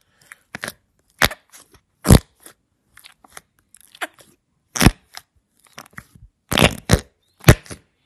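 Slime being squeezed and poked by hand, giving irregular sharp pops and crackles: air pockets bursting as it is pressed, with a few loud pops among fainter ones.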